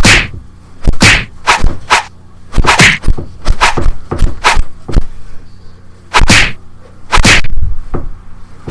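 Kung-fu-style punch and kick impact sound effects: a fast string of sharp whacks, many in quick pairs or clusters, some with a short swish, with a brief pause about five seconds in.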